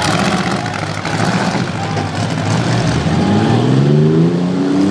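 Engines of half-ton pickup trucks in a demolition derby running hard under load, with one engine revving up and climbing in pitch from a little past halfway.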